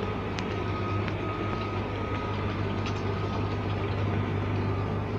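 Combine harvester's engine running steadily: a constant low hum with a faint steady whine above it and a few light ticks.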